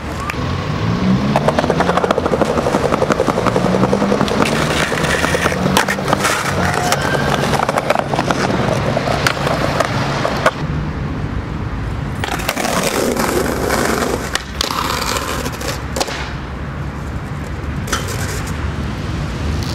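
Skateboard wheels rolling on pavement, with a steady rumble broken by many sharp clacks of the board.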